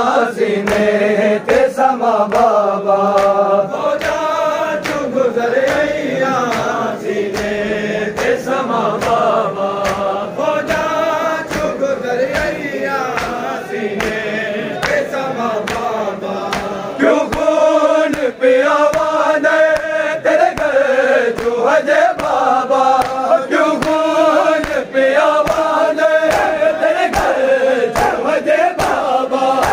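A group of men chanting a noha in unison, with a steady rhythm of sharp hand slaps on bare chests (matam) keeping time.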